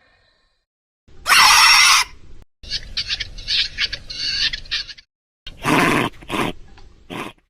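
Invented dinosaur-like creature calls made from mixed raptor and goose sounds: a loud harsh screech about a second in, then a run of short, quick chirping calls, then a few more loud calls near the end.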